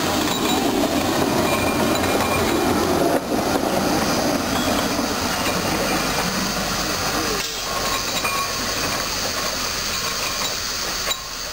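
Minimum-gauge (15-inch) train rolling past close by, wheels running on the rails, then moving off and getting quieter about seven seconds in.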